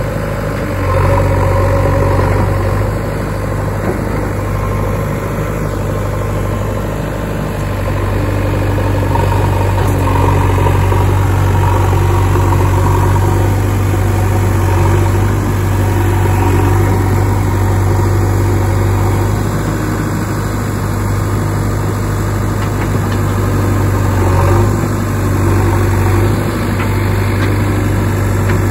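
Diesel engine of a JCB backhoe loader running steadily at a low, even pitch as the machine works in the mud.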